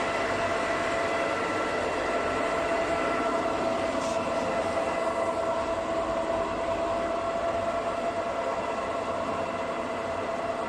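SUMORE SP2145-III gear-head metal lathe running, a steady gear whine from its headstock over an even mechanical hum.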